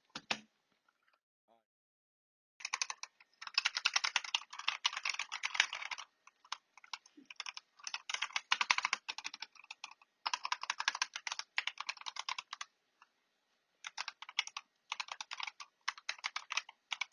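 Rapid typing on a Razer Huntsman Tournament Edition keyboard with linear optical switches, its keys clicking in quick bursts with short pauses. The keys sound pretty quiet.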